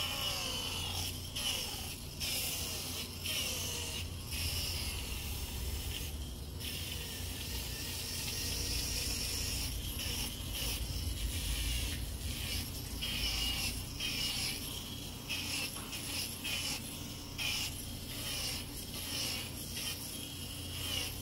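Hurricane single-speed cordless foot drill running with a sanding pad: a steady motor hum while the pad scrapes over dry callus on the sole and toes, with frequent small scratches and knocks.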